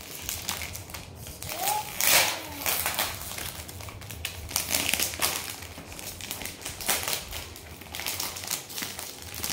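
Clear plastic wrapping crinkling and crackling in irregular rustles as a child's hands pull and tear it open around a boxed pack, loudest about two seconds in.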